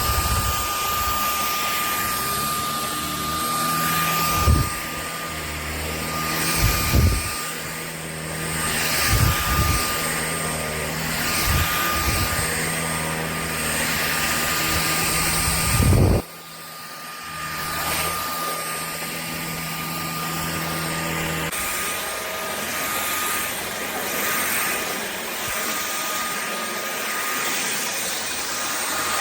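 Shark Clean & Empty cordless stick vacuum running, its motor giving a steady high whine over a constant hiss. There are several low thumps, and about sixteen seconds in the low rumble drops away.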